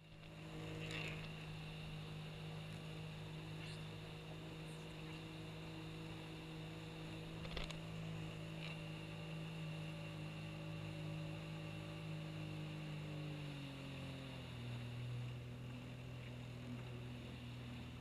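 A steady motor hum that drops to a lower pitch about fourteen seconds in, with a few faint small clicks.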